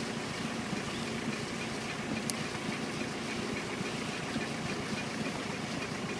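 Tractor engine running steadily, pulling a plastic mulch and drip tape layer. There is one short click about two seconds in.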